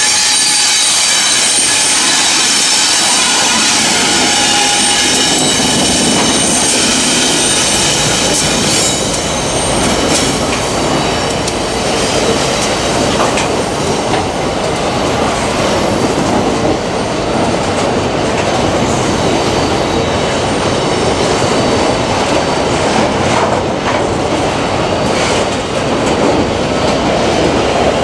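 Empty freight train of steel hopper cars rolling past on a curve. The wheels squeal in several high steady tones, strongest in the first third, over a constant rumble and clatter of wheels on rail with scattered sharp clanks.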